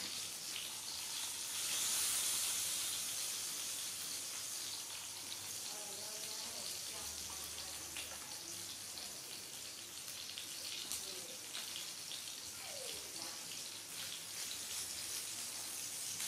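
Steady hissing noise that swells briefly about two seconds in, with faint voices now and then.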